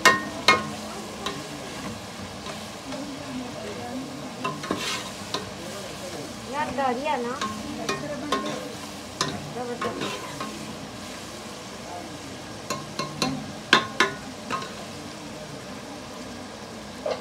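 Metal skimmer ladle stirring a simmering tomato broth in an aluminium pot, scraping and clinking against the pot's side, over a steady sizzle from the pot. Sharp clinks come at the start and again in a cluster about fourteen seconds in.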